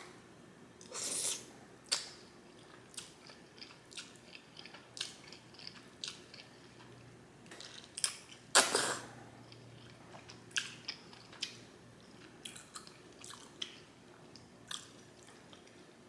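Close-mic chewing and mouth smacking while eating black bean sauce instant noodles (jjajangmyeon). Scattered short smacks run throughout, with two longer noisy mouth sounds, one about a second in and a louder one near the middle.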